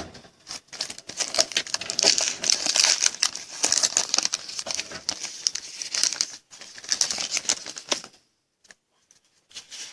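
Plastic trading-card pack wrapper crinkling and tearing as it is ripped open by hand, a dense run of crackles that stops about two seconds before the end.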